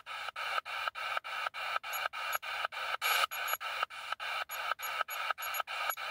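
Ghost-hunting spirit box scanning through radio stations. Its speaker gives out a choppy stutter of static, cut into short bursts about four times a second.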